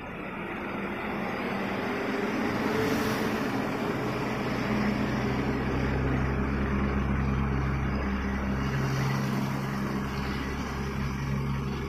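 Heavy Ashok Leyland lorries passing close by one after another, their diesel engines giving a low, steady drone that builds over the first couple of seconds and eases near the end.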